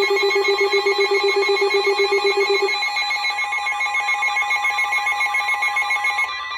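Electronic emergency alert tones from weather radio and EAS receivers, sounding for a new tornado warning: several overlapping tones pulsing fast, about seven times a second. The low tone cuts off about two and a half seconds in, and most of the others stop shortly before the end, leaving a steady tone.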